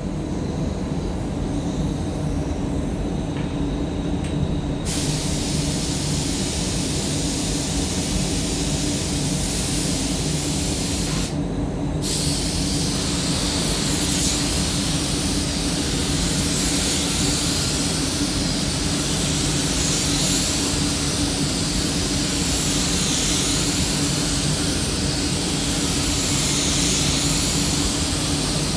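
Air-fed DeVilbiss DV1 spray gun hissing as it sprays paint onto a car door over the spray booth's steady low hum. The hiss starts about five seconds in, cuts out briefly near eleven seconds, then resumes, swelling and fading every couple of seconds.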